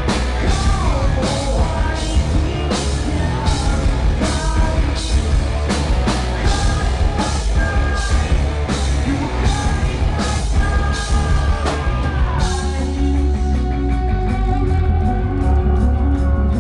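Rock band playing live: drums, electric guitars and bass with a male singer. About twelve seconds in the singing stops and the band moves into a section driven by quick hi-hat strokes.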